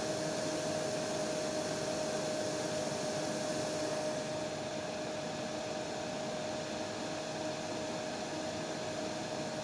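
Hair dryer running steadily: an even rushing whoosh of air with a constant motor whine. About four seconds in, the high hiss dips a little and the sound gets slightly quieter.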